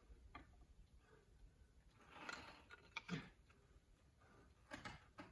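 Near silence: a faint low rumble with a soft hiss and a few faint clicks.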